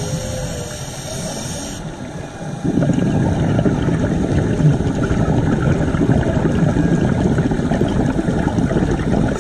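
A scuba diver's regulator breathing heard underwater through a camera housing: a high hiss of inhaling that stops about two seconds in, then a louder, low bubbling of exhaled air from just under three seconds in.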